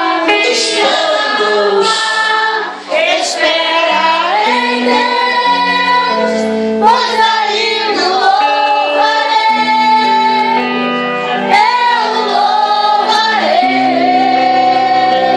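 A Portuguese-language gospel worship song: one voice singing a flowing melody over held instrumental chords and low bass notes that change every second or two.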